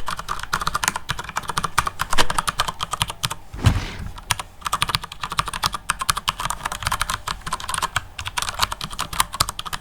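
Typing on a mechanical keyboard: a rapid, steady stream of key clicks, with a brief pause and a dull thump a little over three and a half seconds in.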